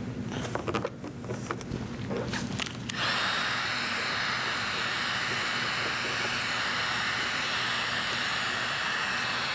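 Handheld electric heat gun switched on about three seconds in, its fan blowing with a steady hiss as it heats vinyl wrap film to set it on the trim. Before it comes on, there are small scrapes and taps of fingers pressing the film down.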